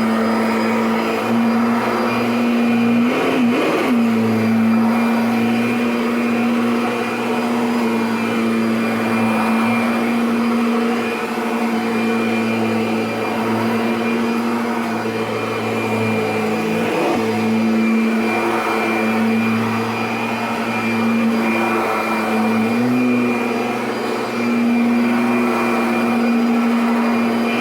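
Kirby Sentria (2011) upright vacuum running steadily as it is pushed over carpet: a loud, even motor hum with a strong steady tone that dips briefly in pitch a few times.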